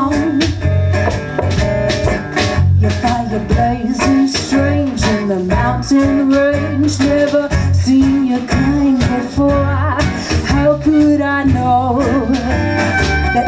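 Live folk-roots band playing an upbeat song: strummed acoustic guitar, electric bass and violin together, with a pitched melody line sliding up and down over a steady low bass.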